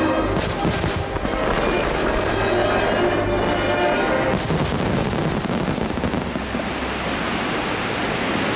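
Fireworks exploding and crackling in rapid volleys over a musical soundtrack during a pyromusical display. After about six seconds the sharp crackle dies away into a duller rumble.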